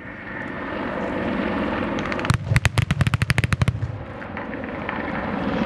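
Rapid string of airshow pyrotechnic charges going off along the airfield, simulating an Apache's cannon strikes on a ground target: about ten sharp bangs a second for about a second and a half, starting a little over two seconds in.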